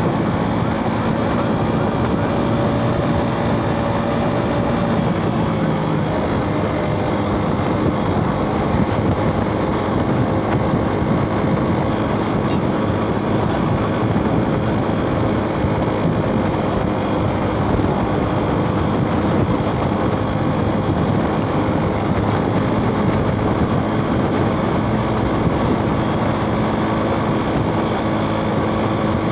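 Suzuki Smash 110 cc single-cylinder motorbike engine running steadily while riding in town traffic, mixed with road and passing-traffic noise; the engine note drops slightly about five seconds in.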